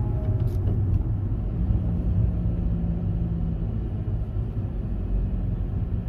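Steady low rumble of a car driving slowly in traffic, heard from inside the cabin. A steady low hum joins in about a second and a half in and fades out a few seconds later.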